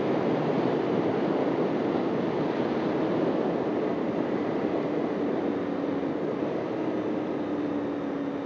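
Honda CBR250 motorcycle riding along, its engine under a heavy steady rush of wind and road noise. A steady engine note comes through from about halfway, and the overall sound eases off slowly near the end as the bike slows.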